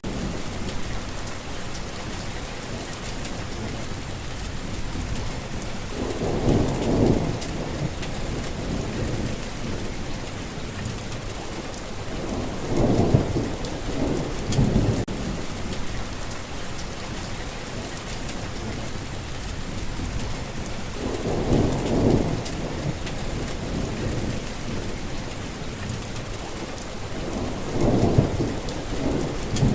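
Steady rain hissing on the ground and foliage, with low rolls of thunder swelling and fading four times, roughly every six or seven seconds.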